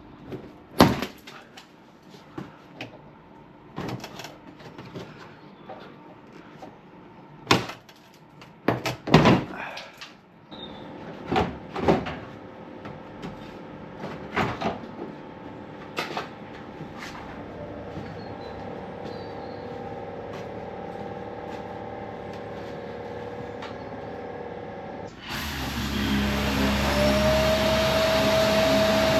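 Irregular clicks, knocks and clatter of car body parts and fixings being handled while a front bumper is stripped off. Near the end a motor-driven machine starts and runs with a steady rush and a whine that rises briefly and then holds.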